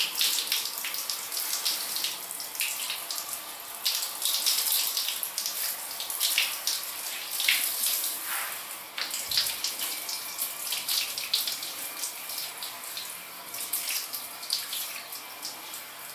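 Water spraying from a handheld shower head onto a dog's coat and splashing onto a tiled floor as its back and hind side are wetted down. A steady hiss that swells and dips unevenly as the spray moves over the fur.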